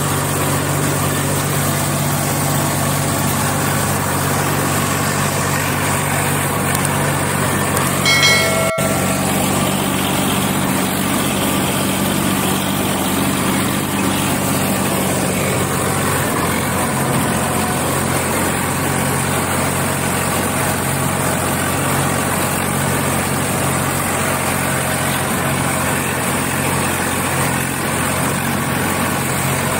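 Swaraj 855 FE tractor's three-cylinder diesel engine running steadily as the tractor drives through deep water. A brief pitched tone and a sharp click about eight seconds in.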